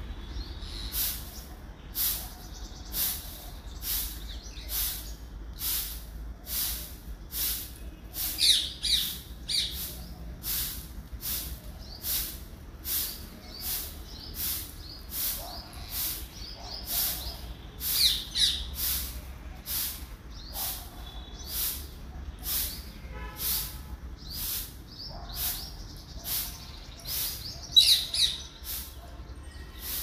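Rose-ringed parakeets giving short, harsh screeching calls a few times, loudest about a third of the way in, just past the middle and near the end, over a steady series of very high chirps repeating about one and a half times a second.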